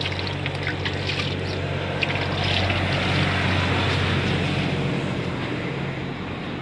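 Water splashing and sloshing as a chicken carcass is worked by hand in a plastic drum of water, over a steady low hum that fades near the end.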